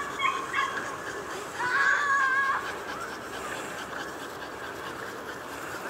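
French bulldog giving a few short high yips, then a drawn-out whine lasting about a second, about two seconds in.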